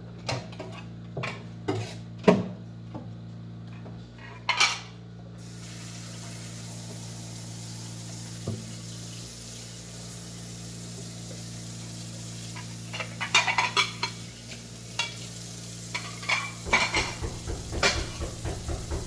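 Scattered knocks and clinks of hard objects being handled, over a steady low hum, with bursts of rapid clattering about 13 seconds in and again near the end.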